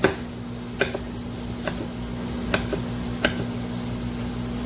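Knife chopping pickles on a cutting board: about five slow, sharp knocks, over a steady low hum.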